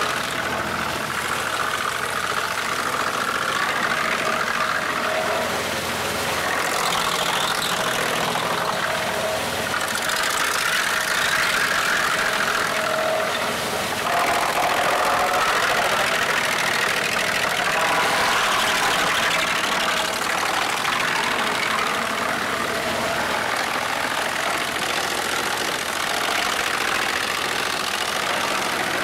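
Homemade wood chipper running steadily while wooden boards are fed through its spiked feed roller and chipped, getting slightly louder about halfway through.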